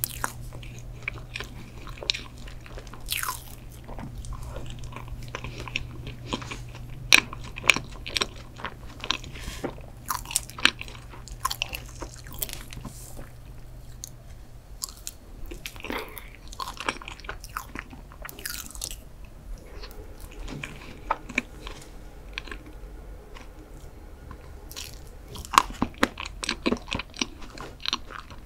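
Close-miked eating of chocolate mousse cake with whipped cream: soft chewing and wet mouth sounds, with sharp clicks scattered throughout.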